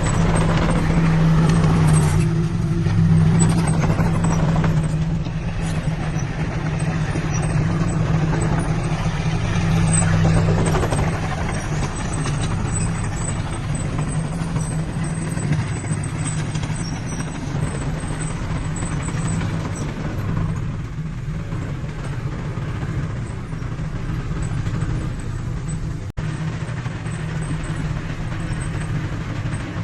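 Heavy diesel engine of earthmoving machinery running steadily, a little louder in the first ten seconds or so.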